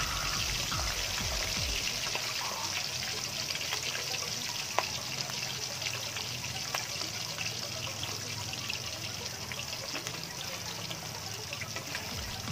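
Fish steaks deep-frying in hot oil in a wok: a steady dense sizzle and crackle of bubbling oil, with one sharper tick about five seconds in.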